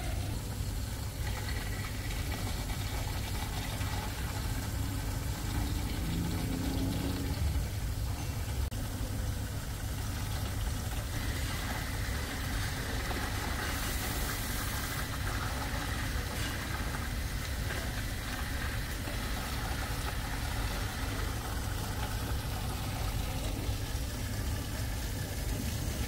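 Steady ambient noise of a large indoor hotel atrium: a constant low hum under an even rushing hiss, with a brief brighter hiss about halfway through.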